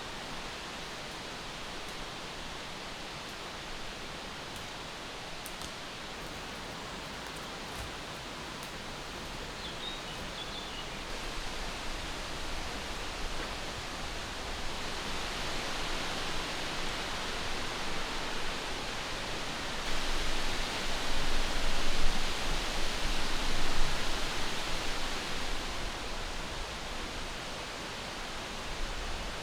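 Strong wind rushing through trees in a steady rush that builds into louder gusts about two-thirds of the way in.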